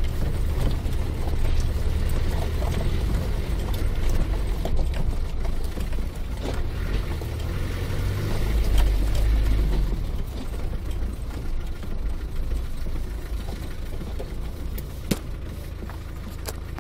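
Four-wheel-drive vehicle heard from inside its cabin on a rough gravel track: a steady low engine and drivetrain rumble with scattered knocks and rattles from the bumpy ride. It grows quieter over the last several seconds, with one sharp click near the end.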